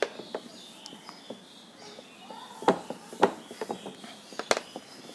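Cloth being wiped over a whiteboard with faint scratchy rubbing, and several sharp knocks against the board, the loudest about two and a half seconds in and near the end.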